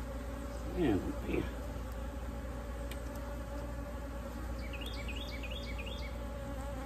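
A crowd of honey bees buzzing steadily around an open hive, a continuous droning hum. The colony is agitated and defensive at being opened.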